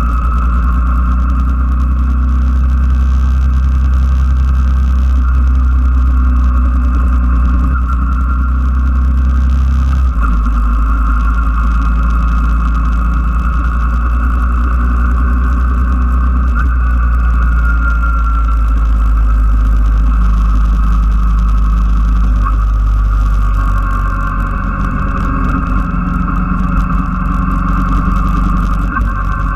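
Yamaha Drag Star's V-twin engine running as the motorcycle rides along, a steady loud sound. Its low note changes about ten seconds in, and it gets a little quieter near the end.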